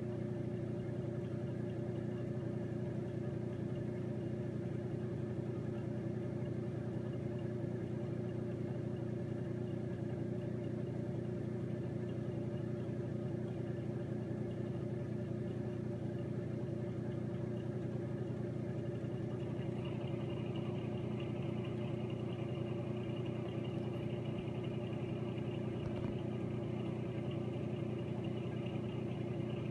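A steady low mechanical hum with no breaks. A faint higher tone joins it about twenty seconds in.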